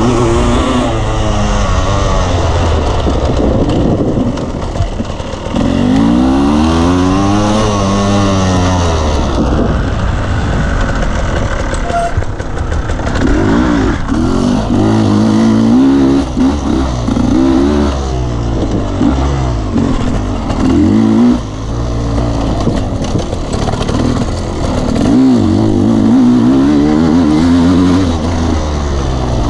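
Dirt bike engine under way on a trail, its pitch rising and falling again and again as the throttle is opened and closed.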